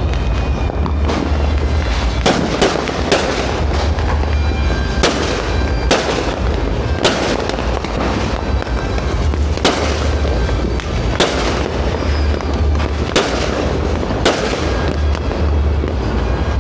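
Fireworks going off: about a dozen sharp bangs at irregular intervals, roughly one a second, over a steady low rumble.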